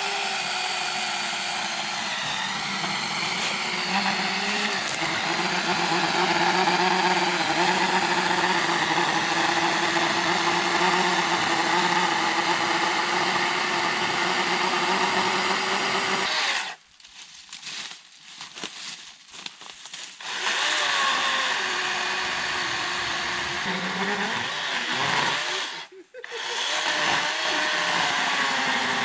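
Kobalt 24-volt cordless electric chainsaw running and cutting through a fallen log, its motor pitch wavering as the chain bites into the wood. Just past halfway it stops for a few seconds apart from a few short bursts, then runs again, cutting out briefly once more near the end.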